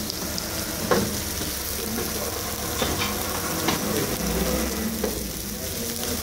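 Kırklareli köfte (minced-meat patties) sizzling on a grill grate over charcoal: a steady hiss of fat cooking, broken by sharp crackles and pops, the loudest about a second in.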